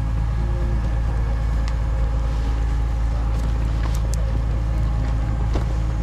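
Tracked excavator's diesel engine idling steadily, with a few faint rustles and knocks from the vinyl barrier fabric being unfolded.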